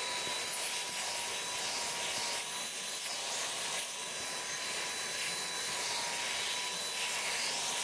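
Handheld stick vacuum cleaner running steadily, a high motor whine over an airy suction hiss, its nozzle drawn through a cat's fur.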